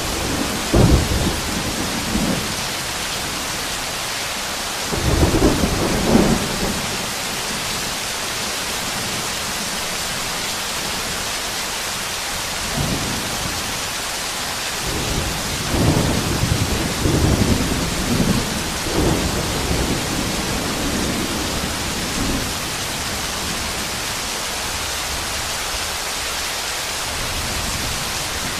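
Heavy monsoon rain pouring steadily, a constant hiss, with deep rolls of thunder swelling and fading a few times: about a second in, around five seconds in, and a longer stretch past the middle.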